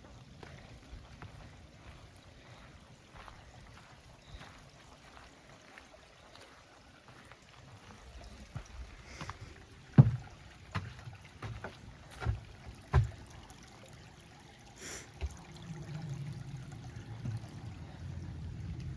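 Hiker's footsteps on a rocky trail: irregular scuffs and knocks, with a few louder thumps about halfway through. A low rumble comes up near the end.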